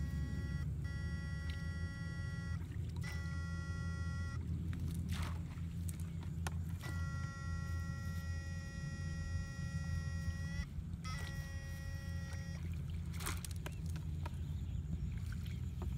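Backpack electrofishing rig buzzing: a high electronic whine switches on and off four times, in stretches of about one and a half to four seconds, as current is sent through the poles into the ditch water, over a low steady hum.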